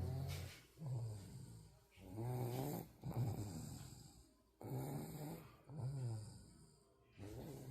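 Mock snoring: about six short, low snoring sounds, each under a second long, coming roughly once a second with quiet gaps between.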